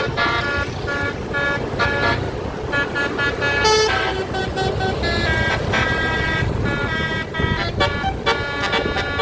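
A bus's telolet musical air horn, Basuri type, playing a quick melody of short tooting notes that step from pitch to pitch, over the bus's low engine and road rumble. A short hissy burst comes a little under four seconds in.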